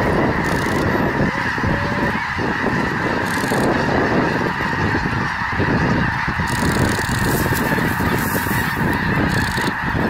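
A large flock of snow geese honking in flight: a dense, continuous chorus of many overlapping calls.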